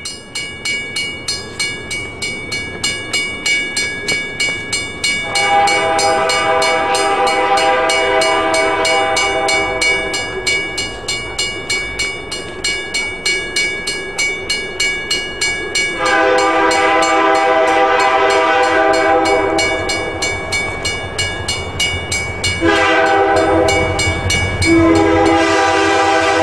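A level-crossing bell rings about twice a second while the approaching freight train's lead locomotive, an EMD SD60F, sounds its air horn in the grade-crossing pattern: two long blasts, one short, then a final long one. The locomotive's low rumble builds near the end as it reaches the crossing.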